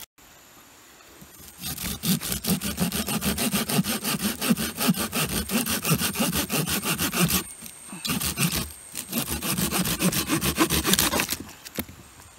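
Hand saw cutting wood with fast back-and-forth rasping strokes, in two spells with a short pause between them.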